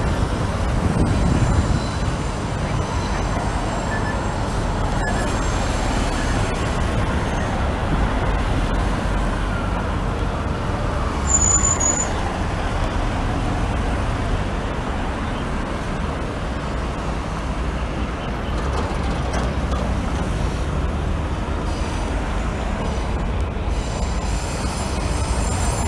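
City street ambience: a steady low rumble of traffic, with a brief high-pitched squeal about eleven seconds in.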